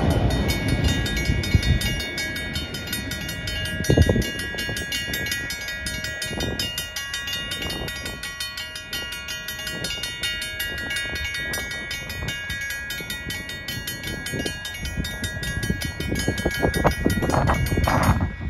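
Railroad crossing warning bell ringing rapidly and steadily, stopping right at the end as the gates rise. The rumble of the freight train's last car clearing the crossing fades out in the first couple of seconds, and wind buffets the microphone with low thumps.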